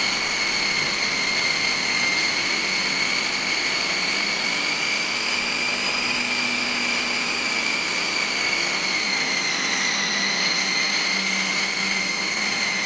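Electric food processor motor running steadily, kneading wheat flour and water into chapati dough; a steady high whine that sags slightly in pitch about ten seconds in.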